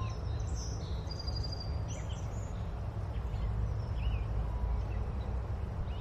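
Nature ambience of scattered faint bird chirps, with a brief high trill about a second in, over a steady low rumble.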